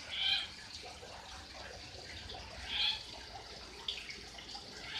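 Myna bird calling: two short, bright calls about two and a half seconds apart, with a fainter brief call near the end.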